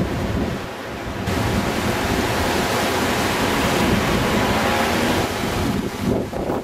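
Strong wind buffeting a camcorder's built-in microphone: a loud, steady rush of noise that turns hissier about a second in and eases near the end.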